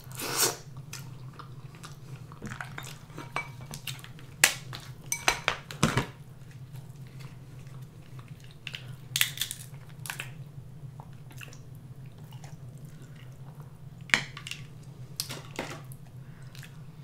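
Close-up eating sounds: king crab shell clicking and cracking as the meat is pulled out by hand, with wet, sticky mouth and chewing sounds. A steady low hum runs underneath.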